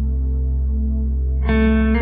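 Background music: a steady, sustained ambient chord over a held bass note, with a brighter chord entering about one and a half seconds in.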